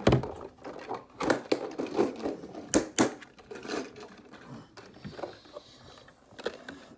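Clicking and clattering of a clear plastic compartment case of diecast toy trucks being handled, a rapid run of knocks that thins out toward the end.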